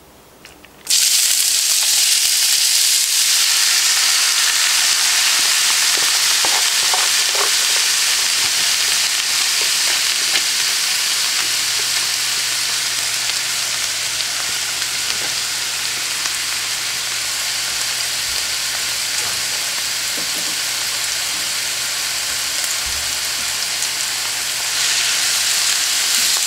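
Chopped onion and celery hitting hot oil in a frying pan: a sizzle that starts suddenly about a second in and keeps frying steadily, stirred with a wooden spatula near the end.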